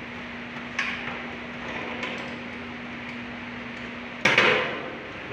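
Sheet-metal aircon housing being knocked and shifted in its window frame with a hand tool: a sharp metallic knock about a second in, lighter taps, then a louder clattering bang with a short ring just after four seconds, over a faint steady hum.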